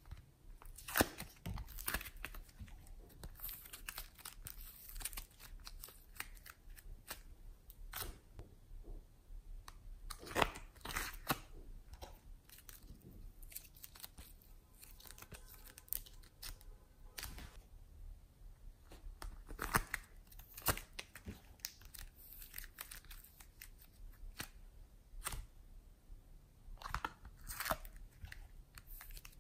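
Soft modelling clay being peeled out of a plastic palette and torn and squeezed by fingers, giving irregular, fairly quiet crackling, tearing and sticky clicks.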